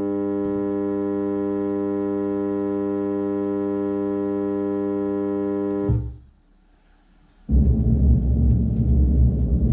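Steady, low-pitched test tone from a signal generator, fed through the subwoofer low-pass filter, with a strong series of overtones from its distorted sine wave. It cuts off about six seconds in, and after about a second and a half of near silence a loud, bass-heavy rumbling signal starts.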